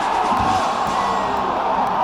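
A large stadium crowd cheering steadily, with music playing underneath.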